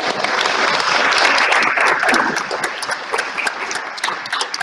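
Audience applauding, loudest about a second in and thinning out toward the end.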